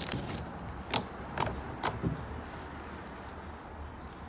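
Homemade slime being kneaded and stretched by hand on a tabletop: a scattering of short sticky clicks and small pops during the first two seconds or so, then quieter.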